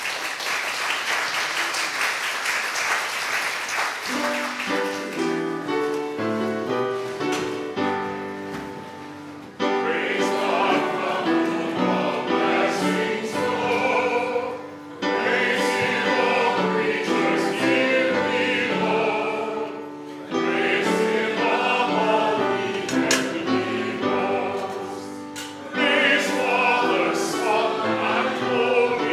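Applause for the first few seconds, then a choir singing in phrases with keyboard accompaniment.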